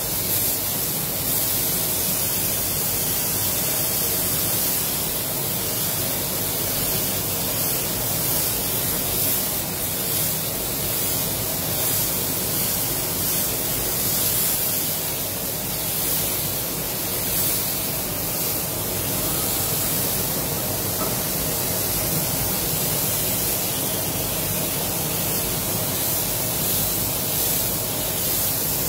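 Air spray gun, an Iwata Supernova LS-400 at 1.8 bar with its controls fully open, hissing steadily as it sprays base coat, over the steady hum of the spray booth's fans. The hiss stops at the end as the trigger is released.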